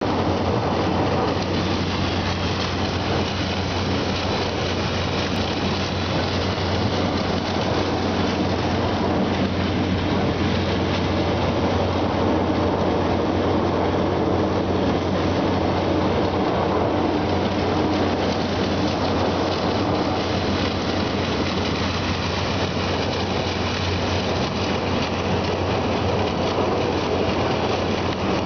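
A small dredge running steadily: a constant low machine hum under the rushing, churning water stirred up by its submerged head.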